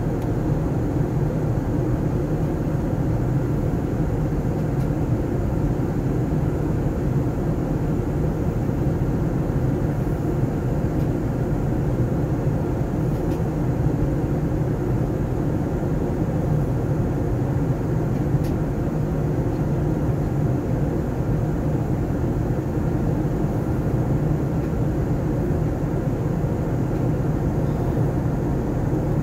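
Airbus A380 turbofan engines and rushing airflow in cruise flight, heard from inside the passenger cabin: a steady, deep drone that does not change.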